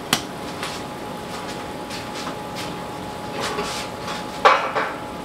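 Hot chicken drippings and seasonings sizzling in a stainless steel skillet as a stick of butter goes in, with a steady hiss and scattered crackling pops. A sharp click right at the start and a brief louder sound near the end.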